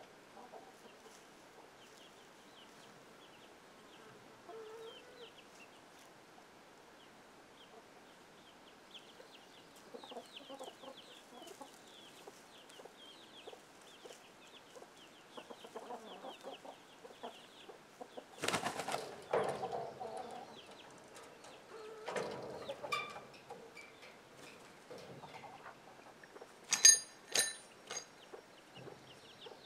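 Free-range chickens clucking, with faint high peeping throughout. A louder burst of noise comes about two-thirds of the way in, and near the end there are two short sharp calls, the loudest sounds here.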